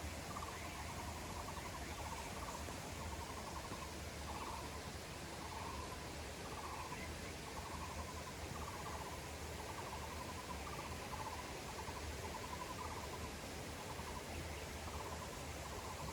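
Taiwan barbet calling: a short trilled note repeated about once a second, over steady background hiss.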